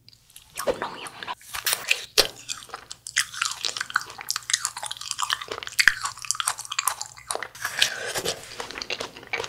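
Close-up biting and chewing of a frozen jelly ball coated in hard tanghulu candy, with many crisp crackling crunches.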